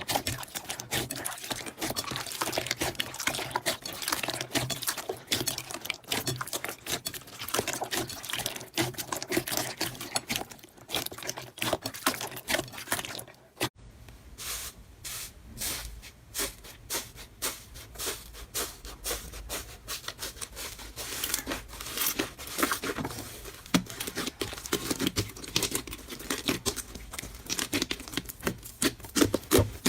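Slime being squeezed, poked and stretched by hand, making dense sticky crackling and popping clicks. It changes abruptly about 14 s in to another slime clip, with sharper separate pops over a faint low hum.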